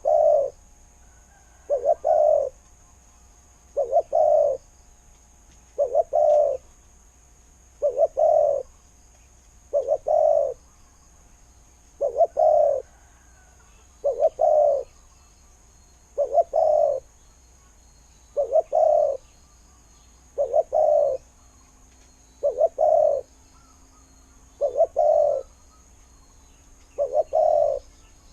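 Spotted dove cooing: a decoy bird repeating its short low coo phrase about every two seconds, fourteen times.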